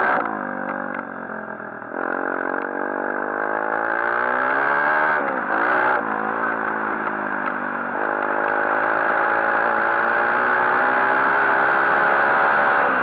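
A 140cc pit bike's single-cylinder engine under way, its revs rising and falling with the throttle. The pitch drops sharply right at the start, climbs steadily, dips suddenly about five seconds in, and jumps again about eight seconds in before climbing toward the end.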